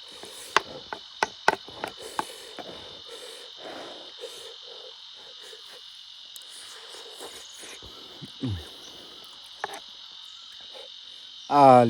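Steady high-pitched drone of insects, with a few sharp clicks in the first couple of seconds and a short low falling sound about eight seconds in.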